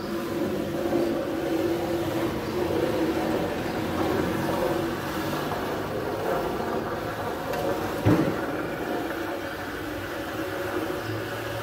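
Steady hum of running machinery, with one short knock about eight seconds in.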